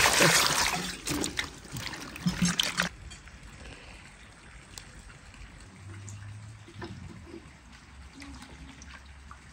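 Water poured over hands rubbing dates in a metal basin, splashing into the water already there. The pour stops about three seconds in, leaving quieter sloshing and soft clicks as the fruit is handled in the water.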